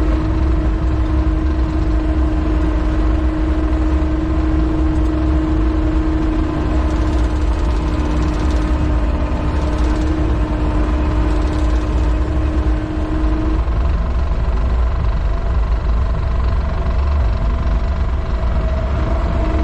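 Takeuchi compact loader's diesel engine running steadily as the machine drives along, with a steady whine over it that stops about two-thirds of the way through.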